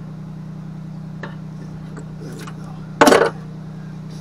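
A steel adjustable wrench clattering down onto the sheet-metal case of a MIG welder about three seconds in, after a few light clicks of the wrench on the wire spool's nut. A steady low hum runs underneath.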